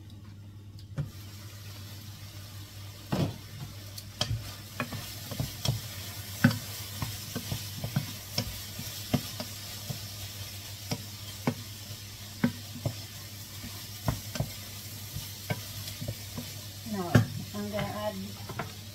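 Bacon, carrots, onion and garlic sizzling in a pot while being stirred with a wooden spatula, with frequent irregular knocks and scrapes of the spatula against the pot. The frying hiss starts about a second in, as the lid comes off.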